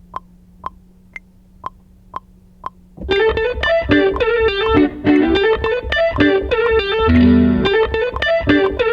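Instrumental beat: sharp clicks about twice a second over a faint hum, then about three seconds in a busy riff of effected, guitar-like plucked notes comes in, with heavy low bass hits twice later on.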